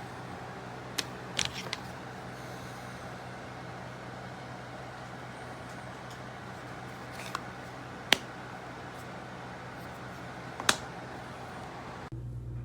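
A handful of sharp clicks and taps, a cluster of them about a second in and single louder ones later, over a steady background rumble. Near the end the background changes abruptly to a steady low hum.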